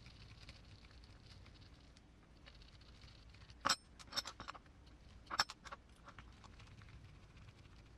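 Small metal parts clinking: screws coming out of an RC crawler wheel's beadlock ring and being set down. There are a handful of sharp clinks near the middle.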